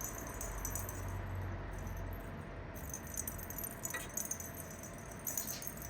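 Faint light jingling and rattling, with a few small clicks about four and five seconds in, over a low steady hum.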